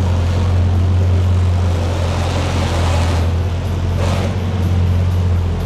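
Bugatti Chiron Sport's W16 engine running with a steady low drone, a rush of noise swelling through the middle and dying away about three seconds in, and a short hiss a second later.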